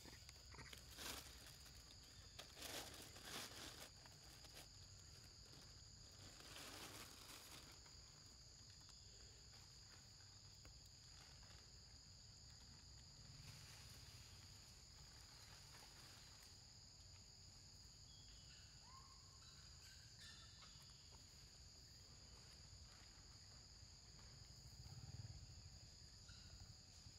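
Near silence with a faint, steady insect drone of two even high tones. A few brief rustles come in the first eight seconds.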